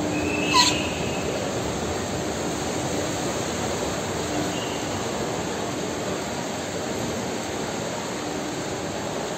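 Steady noisy hum of a large airport terminal hall, with a sharp click and a brief high beep about half a second in.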